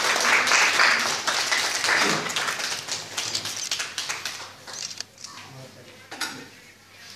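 Chatter of a small group of people in a room, with scattered hand clapping in the first few seconds before it quietens.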